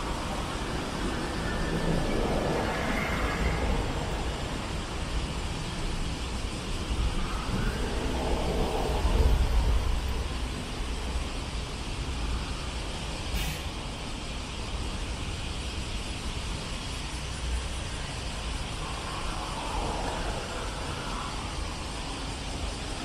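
City street traffic: a steady wash of engine and tyre noise from passing vehicles. A heavy vehicle passes loudest about eight to ten seconds in, and a short hiss comes about thirteen seconds in.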